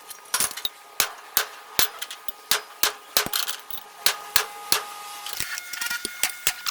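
Hammer tapping on metal in quick, uneven strokes, about two to three a second, several strikes leaving a short metallic ring.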